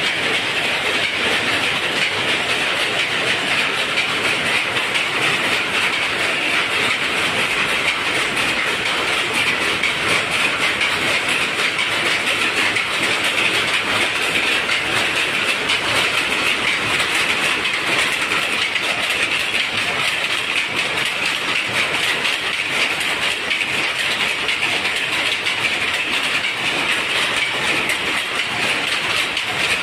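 Many jacquard power looms running together in a weaving shed, making a loud, steady, rapid mechanical clatter.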